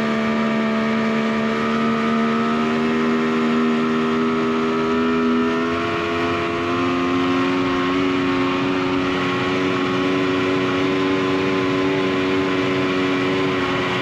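Snowmobile engine running steadily under way, its pitch stepping up a little about halfway through.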